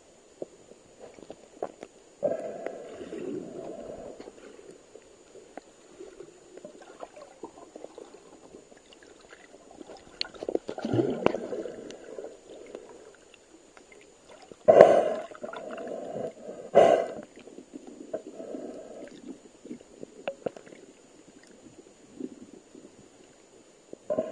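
Muffled underwater gurgling and water movement picked up by a submerged camera, coming in irregular bursts a second or two long, the loudest starting with a sharp knock about fifteen seconds in.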